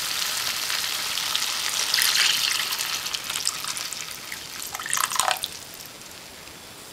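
Water being poured into a pan of simmering rasam mixture, splashing and hissing. It swells about two seconds in and dies away near the end.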